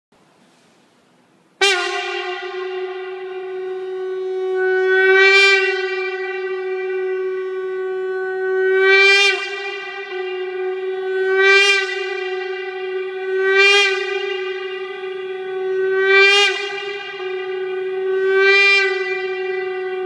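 A shofar blown in one long held note that starts sharply about a second and a half in and does not break, swelling louder and brighter six times, every two to four seconds.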